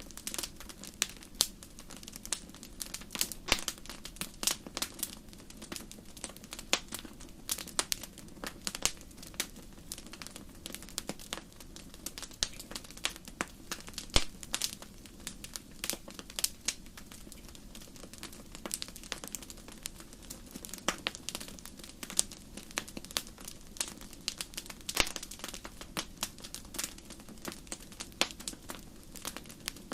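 Wood fire crackling and popping: irregular sharp snaps, many a second, over a steady low hiss of burning.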